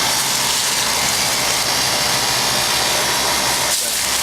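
1989 Lennox heat pump outdoor unit running steadily in cooling mode: a low compressor hum under the even rush of the condenser fan.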